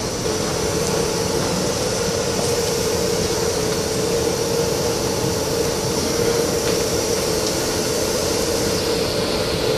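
Metro-North M8 electric train standing at the platform, its onboard equipment giving a steady hum with a constant mid-pitched tone.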